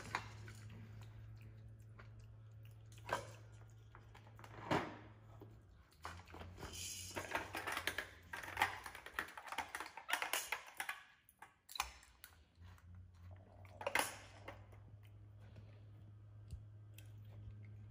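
Plastic toys clattering and rustling as a monkey rummages through a pile of them: scattered clicks and knocks, busiest in the middle, with a few louder single knocks.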